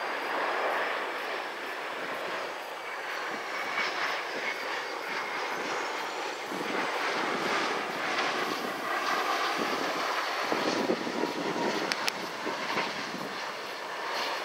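Boeing 717's Rolls-Royce BR715 turbofan jet engines on final approach as the plane passes by: a steady jet rush with a faint high whine that wavers up and down in pitch.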